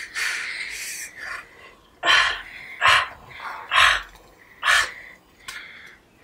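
A man's heavy, effortful breathing: rough breaths, then four sharp forced breaths or grunts about a second apart from about two seconds in, as he strains to bite and tug free of rope tied round his wrists.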